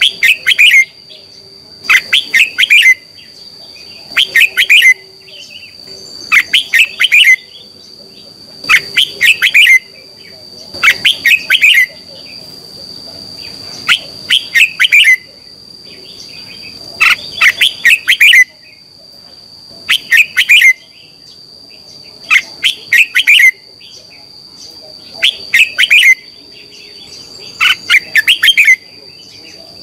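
Red-whiskered bulbul singing short, quick phrases of several notes, one about every two to three seconds, each lasting about a second, with a thin steady high tone behind them.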